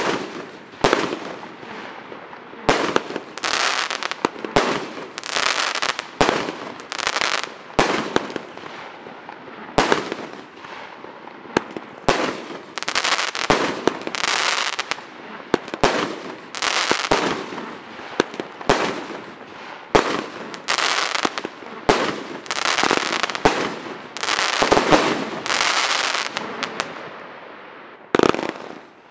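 Weco 'Hurricane' consumer firework cake firing, its tubes shooting and bursting overhead one after another, often several shots a second. The shots die away near the end, with one last burst.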